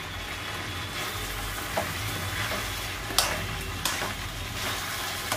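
Chopped vegetables sizzling as they sauté in a metal kadhai over a gas flame, while a spoon stirs and scrapes through them. A few sharp clicks come from the spoon striking the pan.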